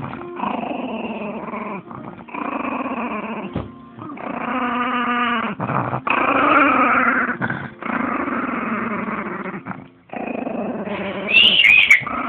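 Small dog growling close up in a string of long growls, each a second or two long with short breaks between. A brief higher-pitched gliding sound comes near the end.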